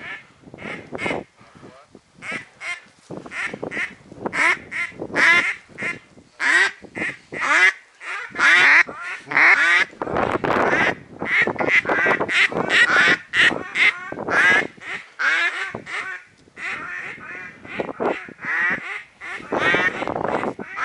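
Loud, close mallard-type duck quacking: rapid series of quacks repeating in bursts with short pauses between them.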